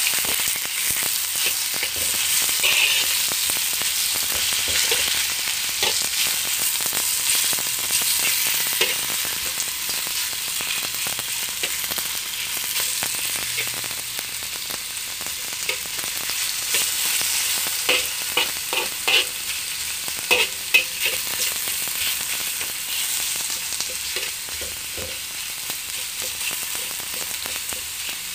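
Marinated beef and garlic sizzling in a hot wok while being stir-fried, a metal spatula scraping and clacking against the wok. A run of louder clacks comes about two-thirds of the way through.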